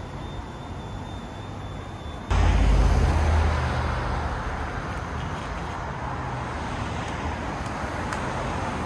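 Road traffic noise. About two seconds in it jumps abruptly louder, with a heavy low rumble that eases off over the next few seconds into a steady wash of traffic.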